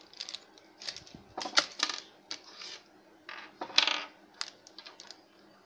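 Handling of in-box earphones being unwrapped: a clear plastic bag rustles and crinkles while the cord, earbuds and plug click and tap against a wooden table. The sounds come as scattered clicks and short rustles, the loudest a little under two-thirds of the way through.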